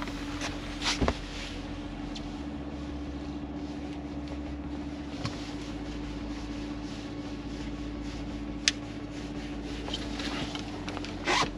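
Boat's outboard motor running steadily at trolling speed, a constant hum. A few light clicks and knocks on the boat, one sharp click about nine seconds in and a louder knock near the end.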